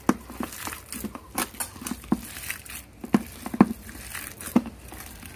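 Shredded cabbage and potato in thick gram-flour batter being squeezed and turned by hand in a metal bowl: irregular short squelches and crackles, a dozen or so.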